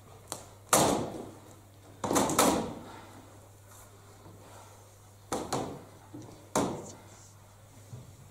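Metal-framed stacking chairs banged down onto a stage floor: a loud bang about a second in, a cluster of bangs around two seconds, then two more around five and a half and six and a half seconds, each with a short ringing decay.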